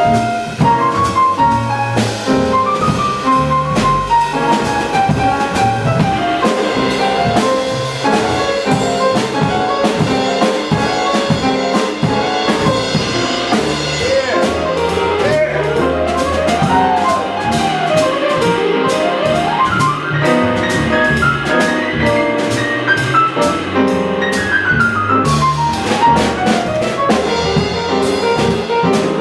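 Live acoustic jazz played by grand piano, upright bass and drum kit at a fast tempo, the piano running quickly up and down the keyboard over busy drums and cymbals.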